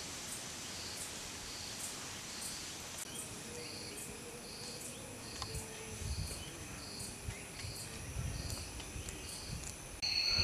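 Insects chirping in a regular pulse of about two high chirps a second, over a steady high drone of other insects. A low rumble comes and goes in the second half.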